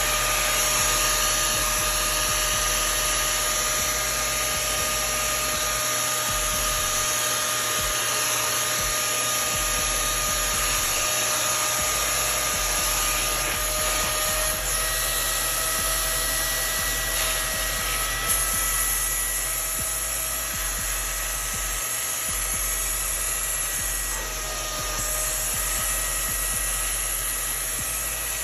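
Hart 3-in-1 wet/dry vacuum and extractor motor running steadily: a high whine over a rush of air. The whine rises slightly in pitch about halfway through and dips briefly near the end.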